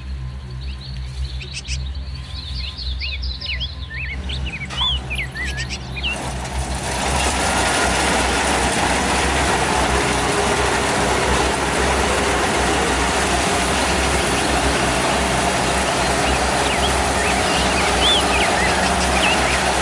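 Kubota DC-70 Plus combine harvester's diesel engine running with a low, steady hum while birds chirp; about six seconds in its noise swells into a loud, steady mechanical din that holds, as the machine works close by.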